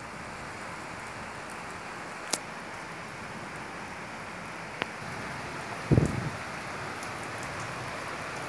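Steady rain falling in a kalbaishakhi (nor'wester) storm. Two sharp clicks and, about six seconds in, a louder low thump.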